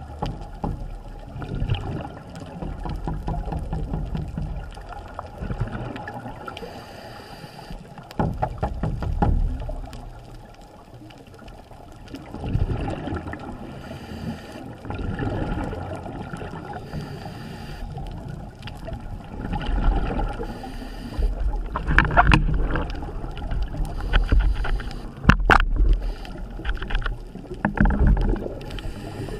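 Muffled underwater sound picked up by a camera in its waterproof housing: low rumbling water movement that swells and fades every few seconds, with scattered sharp clicks and knocks, the loudest a little over 20 s in.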